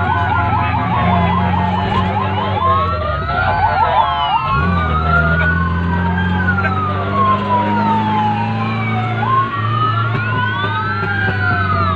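Several fire-brigade emergency sirens sounding at once, their wails rising and falling slowly and overlapping, with one siren on a fast yelp for the first two or three seconds. Under them runs the steady drone of a vehicle engine, heard from inside the cab.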